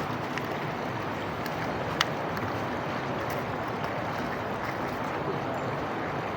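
Steady rushing of water, with a few faint ticks and one sharp click about two seconds in.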